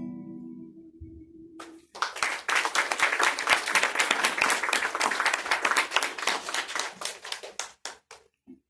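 Final guitar chord ringing out, then a small audience clapping for about six seconds, thinning to a few last claps near the end.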